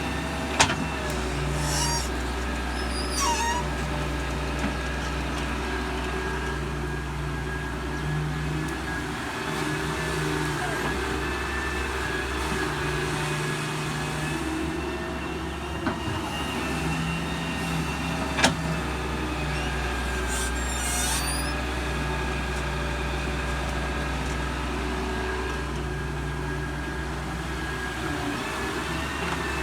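Doosan DX140W wheeled excavator running steadily while it digs and loads soil, its engine and hydraulics droning at a constant level with the tone shifting under load. A few sharp knocks stand out, and brief high chirping squeaks come twice.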